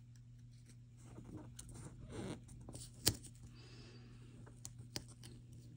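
Soft rustling and scratching of planner paper and sticker sheets being handled, with one sharp tap about three seconds in and a couple of faint ticks near the end.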